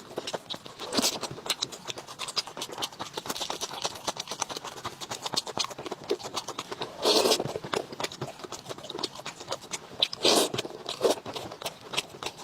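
Close-miked eating sounds: chewing and crunching of food, a dense run of small clicks and crackles, with two louder bursts about seven and ten seconds in.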